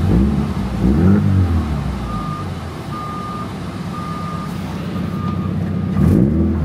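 Subaru BRZ's 2.0-litre flat-four engine running, blipped twice near the start and revved again near the end, and otherwise idling. It is a healthy-sounding motor and exhaust, in the owner's judgment. In the middle there are four short, evenly spaced electronic beeps at one steady pitch.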